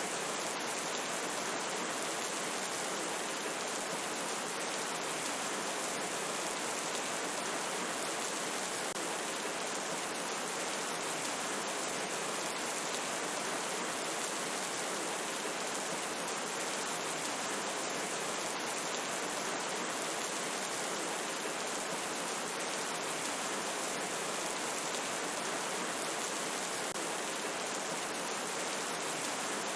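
Steady rain falling: an even, unbroken hiss with fine scattered drop ticks.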